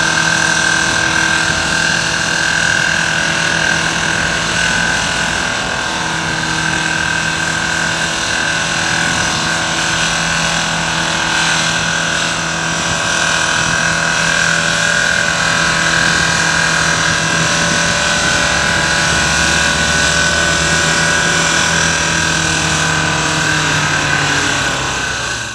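Vehicle engine running steadily and loudly, with a high steady whine over a low hum whose pitch shifts slightly about six seconds in.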